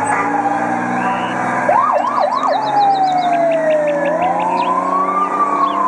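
Fire truck siren wailing, its pitch sliding slowly down and up, with three quick yelps about two seconds in.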